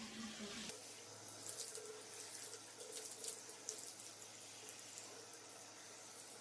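A handheld shower sprayer running, with water hissing and spattering onto a golden retriever's coat and the tiled shower floor as the dog is wetted down.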